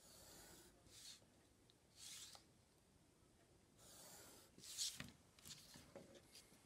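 Coloured pencil drawing straight lines along a plastic ruler on white card: a few short scratchy strokes, the last the loudest, then light knocks as the ruler is shifted across the card.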